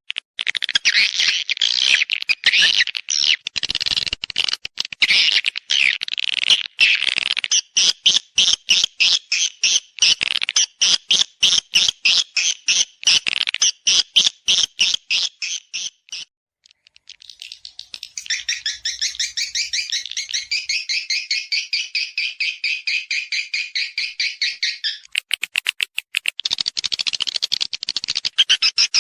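Edible-nest swiftlet calls, a recorded lure and mating call of the kind played from swiftlet houses to draw the birds in to nest. The call is a fast train of sharp, high chirps, several a second. It stops for about two seconds a little past the middle, then comes back as a denser twittering.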